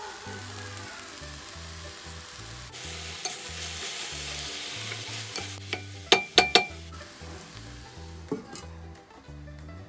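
Sliced eggplant sizzling in a stainless steel pan as it is stirred, the hiss loudest in the middle. About six seconds in, a stirring utensil clanks sharply against the metal pan three times, and a softer metal click follows near the end as the steel lid goes on.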